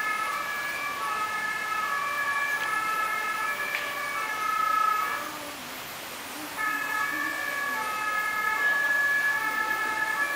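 Two-tone fire-engine siren from a model fire truck, stepping back and forth between a high and a low note. It breaks off about five seconds in and starts up again a second and a half later.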